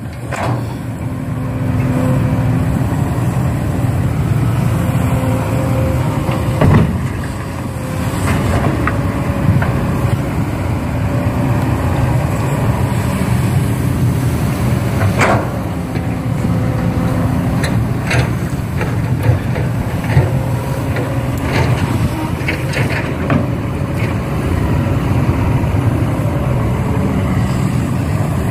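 Steady low rumble of a large engine running, with a few sharp clicks and knocks here and there.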